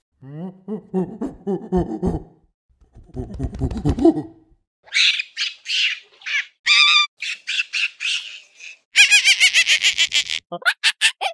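Monkeys calling: low grunting and chattering calls at first, then high-pitched screeches and a fast run of shrill repeated calls near the end.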